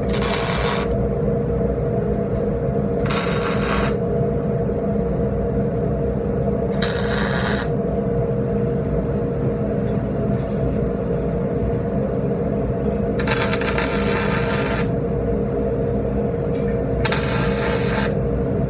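Five short bursts of arc welding, each about a second long and the fourth a little longer, like tack welds or short beads being laid on steel plate. Under them runs a steady machine hum.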